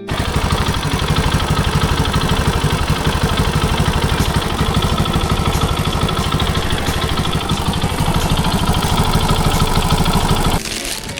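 Honda Super Cub's single-cylinder four-stroke engine idling steadily with a fast, even beat, on an engine suspected of a cam chain tensioner noise. It cuts off suddenly near the end.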